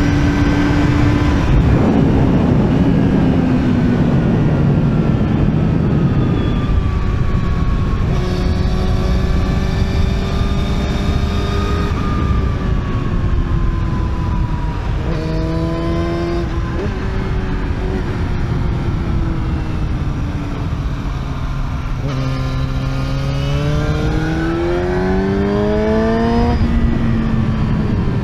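Yamaha YZF-R6's inline-four engine under way, its pitch rising and falling as it accelerates and shifts gear, with a long climb near the end, over a heavy rush of wind.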